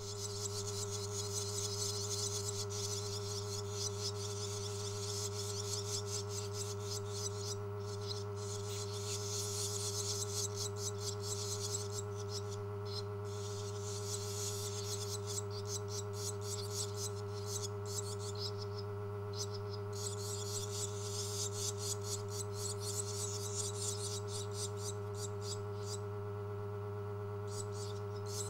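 Barn swallow nestlings giving rapid, high, continuous begging chatter as they are fed, with a few short pauses. Under it runs a steady electrical hum.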